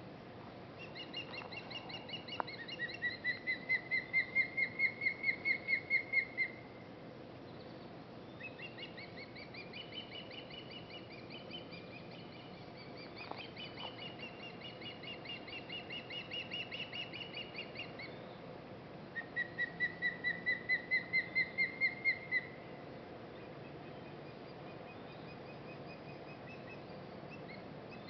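Osprey alarm calls: long runs of rapid, whistled chirps, about five a second, swelling in loudness, two loud runs with quieter, higher chirping between them from the young in the nest echoing the adult's warning.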